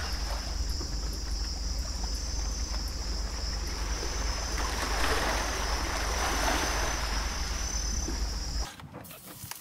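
Outdoor waterside ambience: wind rumbling on the microphone and water washing, with a steady high-pitched whine above. The wash swells in the middle, and everything cuts off shortly before the end.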